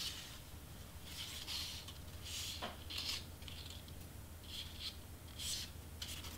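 Cardstock pieces being handled, rustling and scraping in several short bursts, with a faint click a little before three seconds in; a low steady hum underneath.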